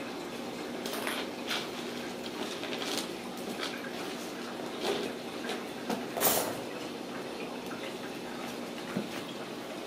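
Kittens playing with toys on a tile floor: scattered light taps, knocks and scuffs over a steady low hum. The loudest knock comes about six seconds in.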